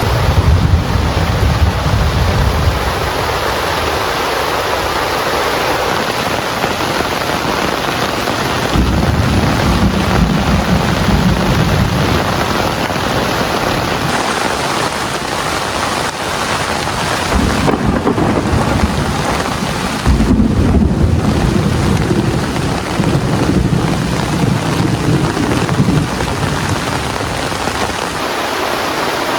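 Heavy rain falling steadily, with rolls of thunder rumbling low at the start, again about nine seconds in, and through a longer stretch from about seventeen seconds.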